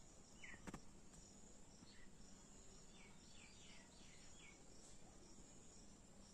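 Faint steady high-pitched trilling of insects such as crickets, with a bird giving a run of four quick downward-sliding calls about three seconds in, and a single sharp click under a second in.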